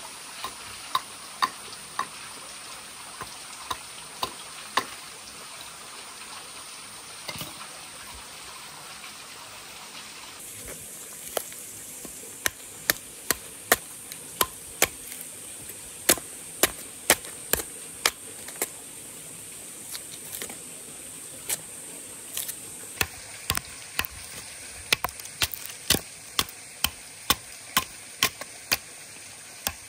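Machete blade chopping into a wooden log, a series of sharp separate strikes. They come about once a second at first and grow quicker and louder after about ten seconds, up to two or three a second.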